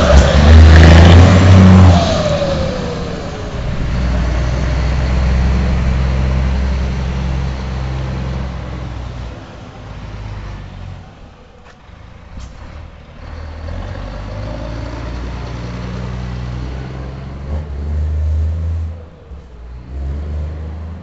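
Scania 420 diesel truck driving past under power, its turbocharger fitted with a "pente" comb insert that makes it whistle. Its engine is loudest in the first two seconds. A tone falls in pitch as the truck passes, then the engine fades into the distance, swelling once more briefly near the end.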